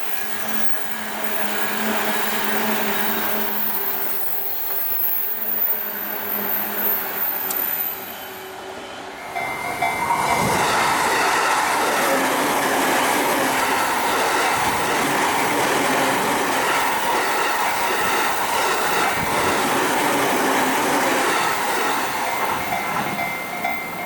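Electric trains running past at close range: first a JR 185 series, then, after an abrupt change about nine seconds in, a louder Tokaido Line commuter train, silver with orange and green stripes. The second train's wheels clack over rail joints as it runs by, and the sound eases a little near the end.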